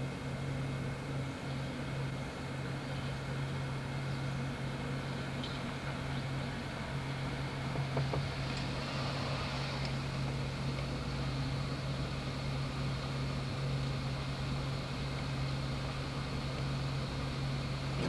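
Steady running noise inside a vehicle travelling along street-running streetcar tracks, with a constant low hum under an even rumble and a couple of faint ticks.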